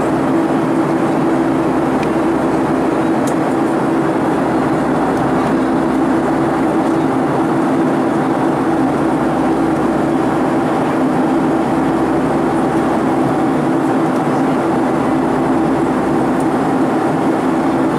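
Steady cabin noise of a Boeing 757-300 airliner in flight, heard from a window seat beside the engine: a constant rush of engine and airflow with a steady low hum under it.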